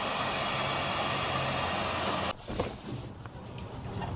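Handheld hot-air blower running with a steady rushing hiss, warming the rubber power steering hose to soften it for removal from the filter; it cuts off suddenly a little over two seconds in, followed by a few faint handling clicks.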